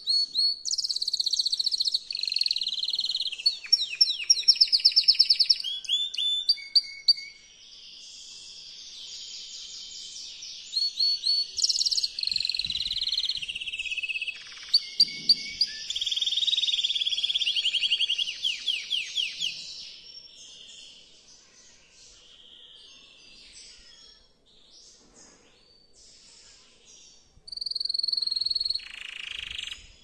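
Male canary singing a long, varied song of rapid trills and gliding, warbled phrases. It is quieter for several seconds late on, then closes with one loud phrase. This is a male's breeding song, the kind used to bring a female into readiness to mate.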